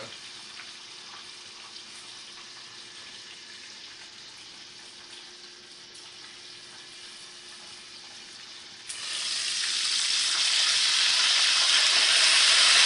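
Chicken deep-frying in hot oil: a faint, steady sizzle that about nine seconds in suddenly jumps to a much louder sizzle.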